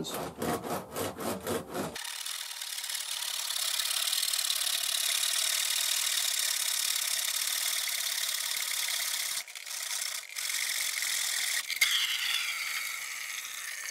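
Hand saw cutting through PVC pool plumbing pipe: quick strokes, about four a second, at first, then a steady rasp that eases off near the end as the cut goes through.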